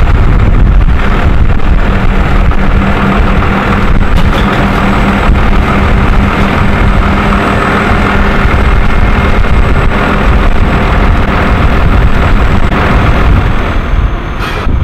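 Iveco Stralis loader-crane truck's diesel engine running steadily with a steady low hum, driving the hydraulic crane as it hoists a load.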